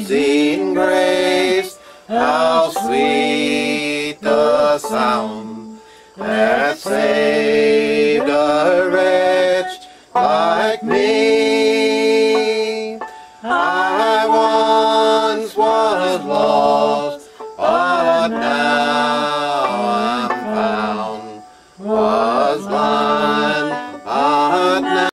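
Bluegrass song: singing in long, held phrases over acoustic guitar and banjo.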